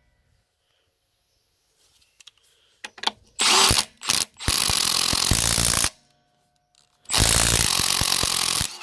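Milwaukee M12 FUEL half-inch stubby impact wrench hammering on 33 mm truck wheel nuts. It gives a few short blips about three seconds in, then two longer bursts of about a second and a half each.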